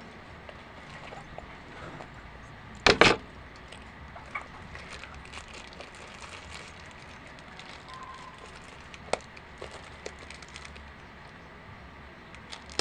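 Handling of a handbag and a plastic-wrapped wristwatch: quiet rustling with a few small clicks, and one loud, sharp handling noise about three seconds in.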